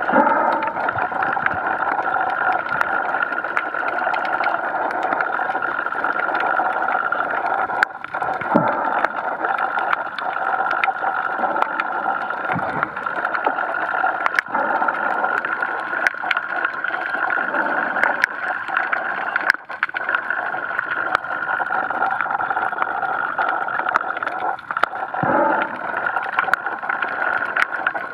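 Underwater sound picked up by a submerged camera: a steady drone with a high tone running through it, scattered sharp clicks, and a few short gurgles.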